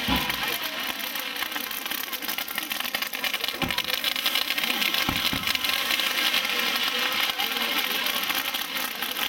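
Fireworks crackling and fizzing steadily: a spark waterfall pouring from a balcony and rockets trailing sparks. A few dull thumps come about three and a half and five seconds in.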